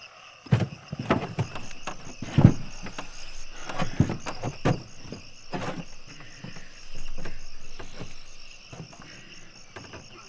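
Crickets chirping steadily in a night chorus, with a string of knocks and clunks of things being shifted about in a wooden cart in the first six seconds, then a longer scrape about seven seconds in.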